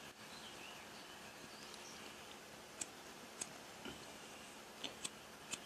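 Quiet background with a handful of faint, sharp clicks scattered through the second half, and faint high chirps near the start.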